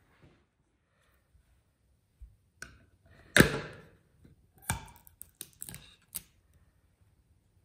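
Screwdriver prying the lid off a small metal paint tin: a loud metallic knock about three and a half seconds in, then a run of sharper clicks as the lid is levered around its rim and comes free.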